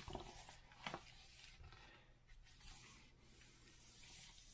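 Faint paper rustling as pages of a hardcover book are turned, with a few soft ticks of paper near the start and about a second in.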